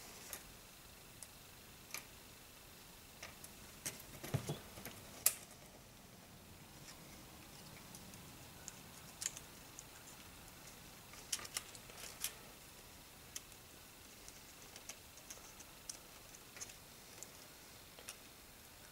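Faint, scattered clicks and taps of small plastic model-kit parts being handled and fitted together on a cutting mat, with a slightly louder knock about four to five seconds in.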